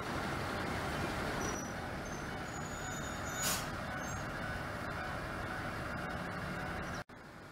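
Diesel railcars idling at a station platform, a steady low engine rumble. About three and a half seconds in comes a short hiss of released air. Near the end the sound cuts off abruptly and comes back as a quieter rumble.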